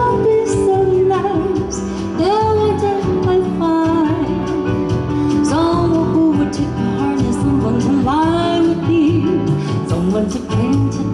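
A band playing with a woman singing a slow melody in held, wavering phrases of a second or two each.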